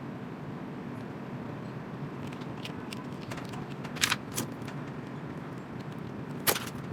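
Steady low background hum with a few light clicks from small repair tools handling a phone: a pair about four seconds in and one more near the end.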